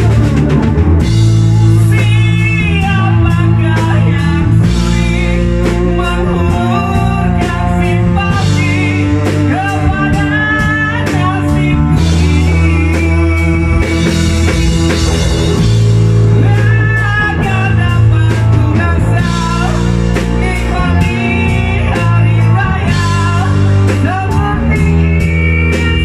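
Live blues-rock band playing: electric guitar, electric bass and drum kit, with a voice singing a wavering melody over them.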